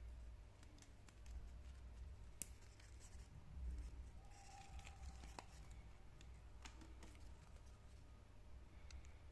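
Faint handling noises: scattered light clicks and a brief rustle, typical of a watch and its packaging being handled, over a steady low hum.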